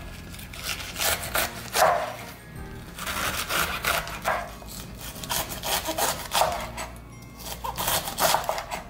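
Chef's knife slicing cabbage into thin shreds on a bamboo cutting board: runs of quick cuts, the blade knocking the board, with short pauses between runs. Background music plays throughout.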